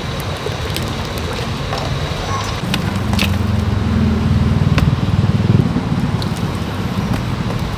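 Busy road traffic, with a motor vehicle passing close and loudest about halfway through; a few sharp clicks and clatters over the top.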